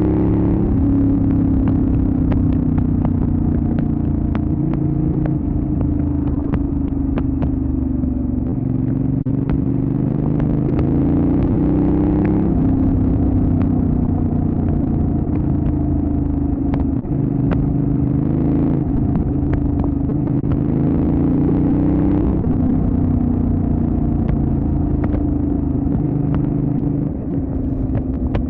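Benelli Leoncino 800 Trail's parallel-twin engine running under way, its pitch rising and falling with the throttle, with scattered sharp ticks.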